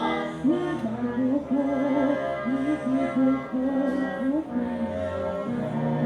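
A woman singing a slow, wavering melody over instrumental accompaniment.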